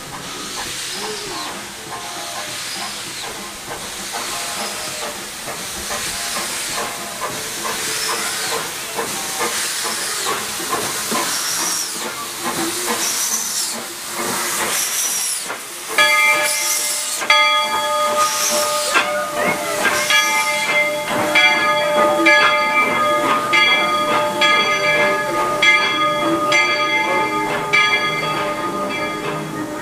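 Narrow-gauge steam locomotive arriving at a station, hissing steam with repeated chuffs about once a second. About halfway through, its bell starts ringing steadily and keeps ringing over the hiss as the cars roll by.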